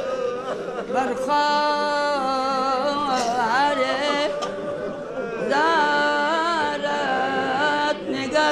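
A man's voice chanting a masaib lament for Imam Hussain in Balti, holding long notes that waver and slide between pitches. It comes in several sung phrases with short breaks between them.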